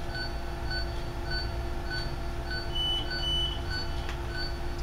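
Operating-room patient monitor beeping with the pulse: a short beep repeating at an even pace, a little under two a second, over a steady machine hum. A longer, higher beep sounds twice about three seconds in.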